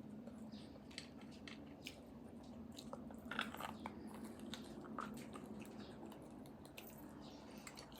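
Faint close-miked eating sounds: chewing, wet mouth smacks and small sharp clicks as a person gnaws the leftover bits off an air-fried marrow bone.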